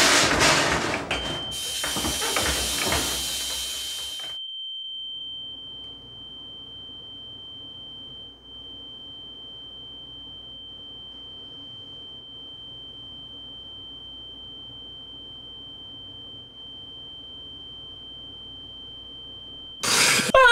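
A single steady high-pitched electronic tone, held unbroken for about eighteen seconds over a faint low hum. A loud rushing noise runs under it at the start and cuts off after about four seconds.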